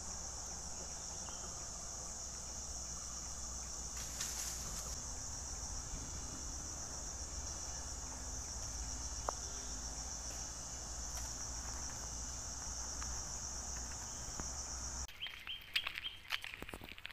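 A steady, high-pitched drone of forest insects under a low rumble. About fifteen seconds in it cuts off, giving way to scattered sharp crackling clicks and a lower insect buzz.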